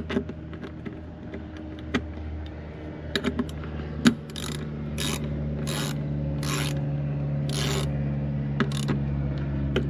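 Ratchet wrench clicking in about five short rasping strokes as the 10 mm bolts of a plastic engine cover are run down, after a few sharp knocks of tools or parts.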